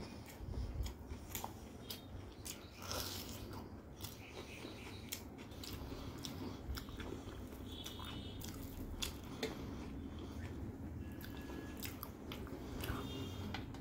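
Close-miked chewing and wet mouth clicks of a person eating rice by hand, with fingers squishing and mixing rice on a metal plate. Short sharp clicks come irregularly throughout.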